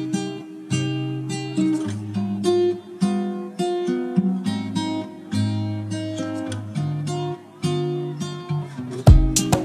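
Background music: an acoustic guitar picks a melody of notes that start sharply and fade. About nine seconds in, heavy drum beats come in.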